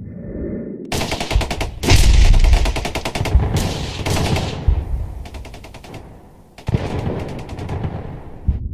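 Gunfire sound effect: rapid machine-gun bursts, starting about a second in, with a short lull near the end before a last round of shots.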